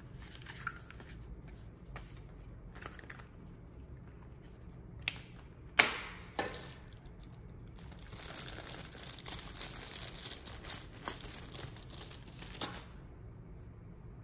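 Packaging being opened by hand: a few sharp snaps, the loudest about six seconds in, then several seconds of crinkling and tearing of wrapping that stops shortly before the end.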